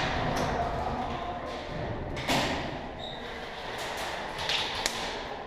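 Two sharp knocks or pops, one about two seconds in and a thinner, sharper click near the end, over steady indistinct background noise echoing in a large concrete underground hall.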